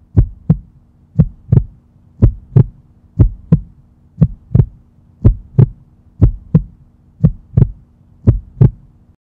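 Heartbeat sound effect: slow, even lub-dub pairs of low thumps, about one beat a second, over a faint steady hum.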